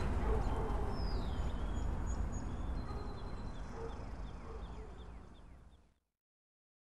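Outdoor traffic ambience: a steady low rumble with high chirping calls over it, fading out gradually and going silent about six seconds in.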